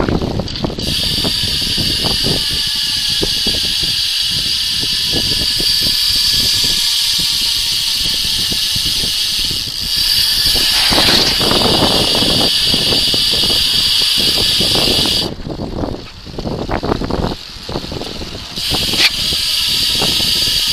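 Rear freehub of an ARC mountain-bike hub ticking as the rear wheel coasts: a high, fast buzz of ratchet clicks. It breaks off about fifteen seconds in, with a few scattered clicks, and starts again a few seconds later.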